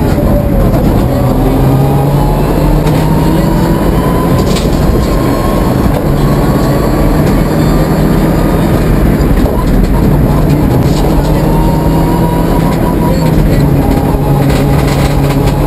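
Mitsubishi Lancer Evo IX rally car's turbocharged four-cylinder engine pulling hard, heard from inside the cabin. The revs climb slowly and drop back at gear changes several times, over loud tyre and road noise.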